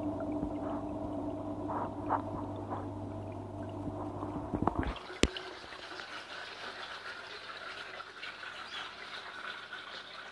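Muffled underwater sound in a bathtub pond: a steady low hum with faint knocks, then sharp splashing clicks about five seconds in as the camera breaks the surface. After that the hum gives way to a brighter, even hiss with water trickling.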